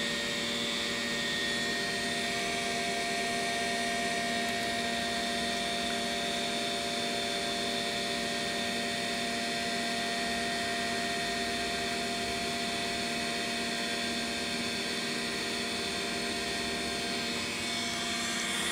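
Steady whirring hum with several high, unchanging whine tones from a spinning Seagate 5.25-inch full-height SCSI hard drive, mixed with computer cooling fans.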